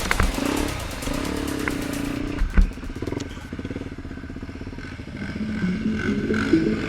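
ATV engine running, with a sharp thump about two and a half seconds in; it settles to a lower, evenly pulsing idle, then picks up again near the end.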